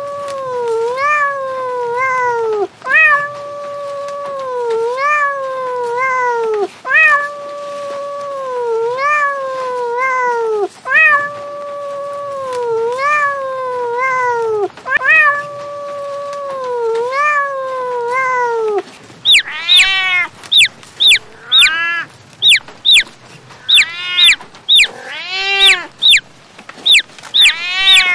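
Cat meowing in a repeating phrase: a long drawn-out meow followed by shorter falling meows, the same phrase coming back about every four seconds. After about nineteen seconds it changes to a quick run of short high kitten mews, one or two a second.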